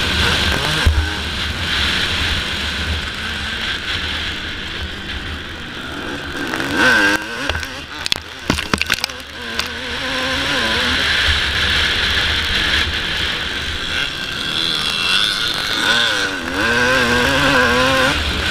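Suzuki RM250 two-stroke single-cylinder motocross engine running hard under load, heard from the bike itself, its pitch rising and falling as the throttle is worked and gears change. A low wind rumble sits under it, and a flurry of sharp knocks comes about eight seconds in.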